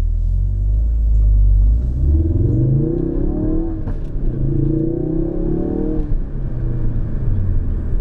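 2017 Ford Focus RS's turbocharged 2.3-litre four-cylinder, heard from inside the cabin under hard acceleration. A deep rumble rises in pitch, breaks at a gearchange about four seconds in, climbs again, then drops to a lower steady note about six seconds in.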